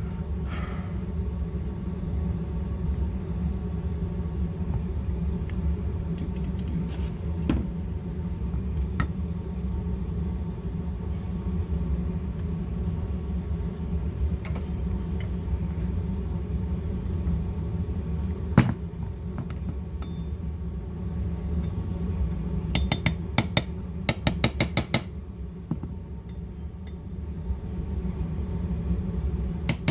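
Light metallic clicks and taps of small pistol parts being handled on a workbench, with one sharper knock partway through and a quick run of light clicks near the end, over a steady low hum.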